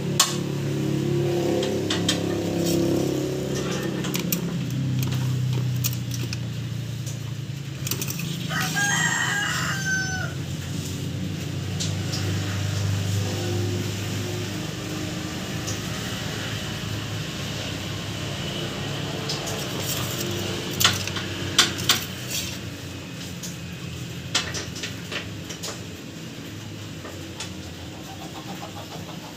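A low steady hum, with one drawn-out animal call about nine seconds in that lasts a second and a half and falls in pitch at the end. A few sharp clicks come around twenty-one seconds.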